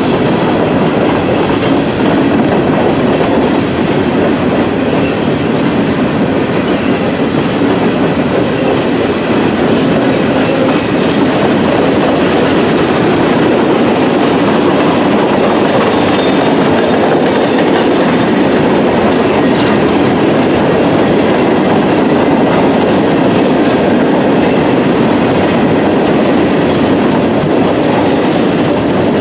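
Empty coal hopper cars of a freight train rolling past, their steel wheels rumbling and clattering steadily over the rail. A thin, high wheel squeal sets in near the end.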